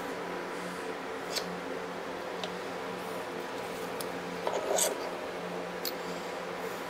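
Electric shop fan running with a steady hum. A few light clicks and a short clatter of small metal parts being handled are heard, the clatter about two-thirds of the way through.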